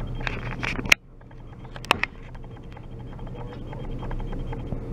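Steady low rumble of a freight train of coal hopper cars rolling past, with faint scattered clicks and one sharp click about two seconds in.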